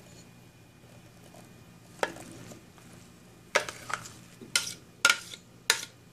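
Metal spoon scraping and knocking against a clear bowl as diced fruit is scraped out into a ceramic slow-cooker crock: a run of about six sharp clicks and scrapes, starting about two seconds in and coming faster near the end.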